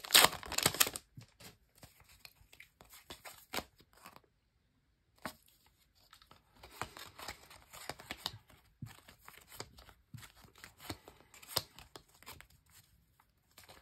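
A Match Attax trading-card foil pack crinkles loudly as it is pulled open in the first second. Then the cards inside are slid out and leafed through, with faint scattered rustles and taps and a short silence about four seconds in.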